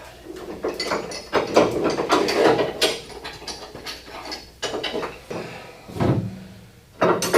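Metal tools clanking, rattling and scraping against a seized ball fitting as a breaker bar is worked on it, in irregular knocks with a sharp one near the end.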